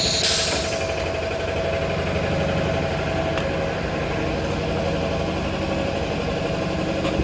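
Toilet-paper rewinding machine running steadily: a low hum with a steady mid-pitched tone. A brief hiss sounds in the first half second, and a sharp knock comes near the end.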